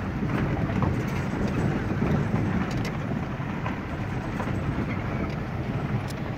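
Road noise inside a moving car's cabin: a steady low rumble of tyres rolling over a rough unpaved road, with occasional small ticks.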